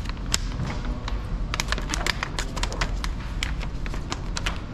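Paint protection film's paper release liner crackling and crinkling as it is handled and peeled back: a run of irregular sharp clicks, thickest in the middle, over a steady low hum.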